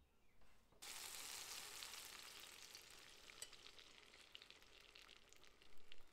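Beaten egg poured into a hot oiled non-stick frying pan, sizzling with scattered crackles. It starts suddenly about a second in, then slowly eases.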